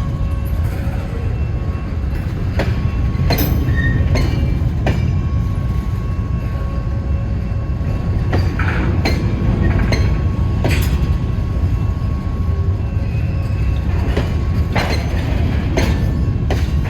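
Norfolk Southern freight cars rolling past: a steady low rumble, with irregular sharp clacks as the wheels cross rail joints, and a faint steady high whine.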